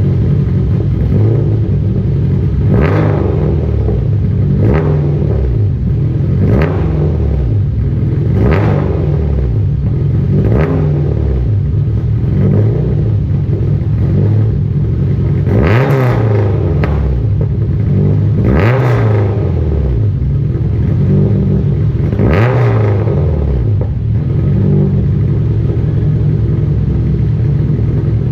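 K-series swapped Honda Civic's four-cylinder engine idling and being blipped with the throttle, short revs roughly every two seconds, then three longer, higher revs that rise and fall about two-thirds of the way through.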